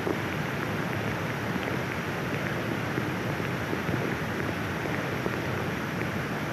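Muddy floodwater rushing down a street, a steady, even rush of water.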